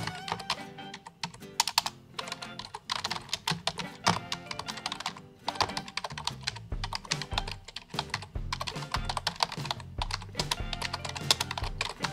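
Typing on a computer keyboard: quick runs of key clicks with short pauses between them, over background music.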